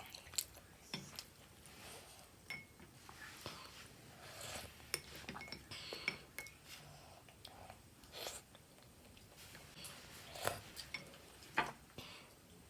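Faint, scattered clinks and taps of cutlery against dishes, a few of them briefly ringing, as a meal of momos and soup is eaten.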